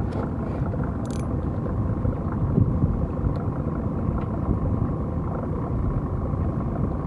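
Steady low wind rumble buffeting the camera's microphone, with one short click about a second in.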